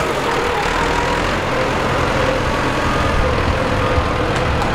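Tractor engines running steadily at low revs as a farm tractor tows a pulling tractor slowly off the track.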